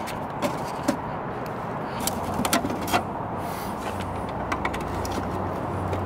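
A flat-blade screwdriver prying plastic push rivets out of a power wheelchair's plastic cover panel: scattered small clicks and taps over steady background noise.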